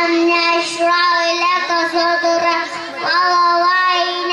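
A young boy reciting the Qur'an in melodic chant (qira'ah), holding long notes with small wavering ornaments. He breaks off briefly about three seconds in, then starts a new phrase.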